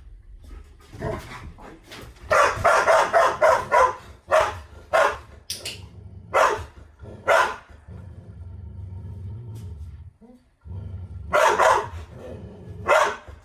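An animal barking: a quick run of barks at about four a second, then single barks roughly a second apart, and a short burst again near the end, over a low steady hum.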